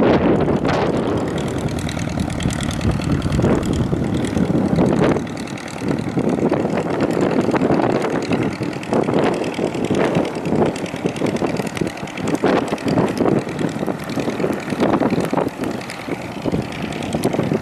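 Cozy Mk IV homebuilt canard aircraft's propeller engine running at low taxi power, a steady drone with some uneven flutter.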